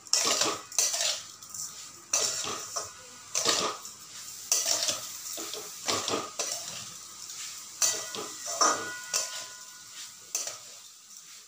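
A spatula scraping and knocking against a heavy-bottomed metal kadhai while stirring grated coconut and sugar, dry-roasting it in irregular strokes. The pan rings briefly now and then.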